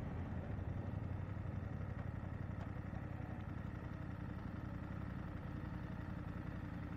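BMW F 750 GS parallel-twin motorcycle engine running steadily as the bike slows down in low gear.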